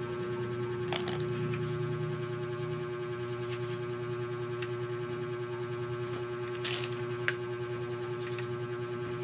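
A steady droning hum with one constant mid-pitched tone, with a few light clicks and rattles from an antenna cable being uncoiled and handled, about a second in and twice near the end.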